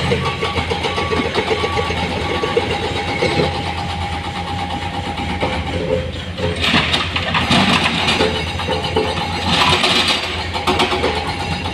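Heavy diesel machinery of an excavator and dump truck running steadily, with two louder noisy surges part-way through. A repeating beep sounds about once every two-thirds of a second during the first couple of seconds.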